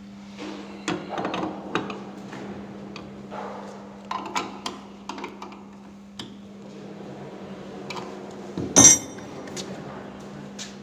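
Steel open-end wrenches clinking and clanking against the hold-down clamps and the router's slotted metal table as the clamps are tightened on a brass plate, with one loud metallic clank near the end. A steady low hum runs underneath.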